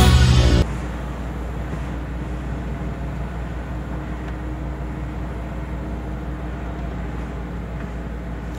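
Music cuts off about half a second in, leaving a truck's diesel engine running steadily with road noise while driving along.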